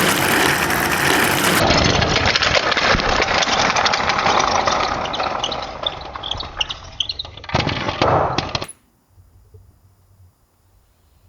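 Dense, loud clatter of many small toy vehicles knocking and rattling against each other, with a last short burst before it cuts off suddenly about eight and a half seconds in.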